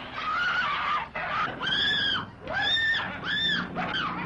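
A woman screaming in terror, about five short, shrill cries in a row, each rising and falling in pitch.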